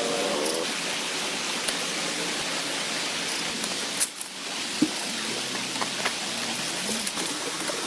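Steady rainfall, with scattered sharper drop ticks and one louder tick about four seconds in.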